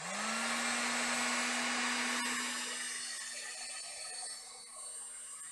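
Electric heat gun switched on: its fan motor hum rises briefly in pitch as it spins up, then holds steady under a loud rush of blowing air. It is heating the plastic insulation sleeve of a crimp terminal to remove it.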